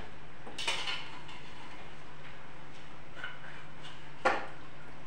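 Metal spoon clinking and scraping inside a metal pressure cooker as boiled vegetables are scooped out: a few separate clinks, the loudest one about four seconds in.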